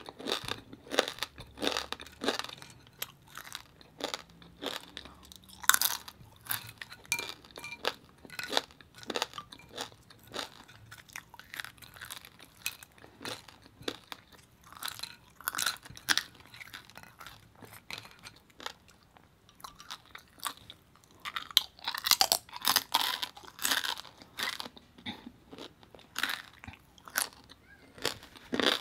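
A person chewing crispy roasted pig skin (lechon), a long irregular run of crackly crunches that gets busier about three-quarters of the way through.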